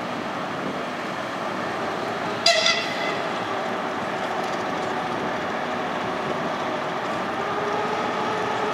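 TGM6D diesel-hydraulic shunting locomotive running as it moves slowly past, a steady engine drone. About two and a half seconds in there is a brief, high horn toot.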